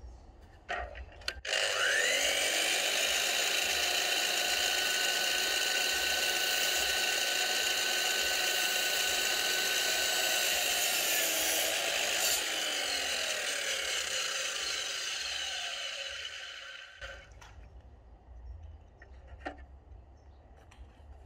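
DeWalt DWS780 305 mm sliding mitre saw starting up with a rising whine and running through a cut in a 4x4 tanalised treated fence post. Near the middle the trigger is released and the blade winds down over several seconds, its pitch falling. A few light handling clicks come before and after.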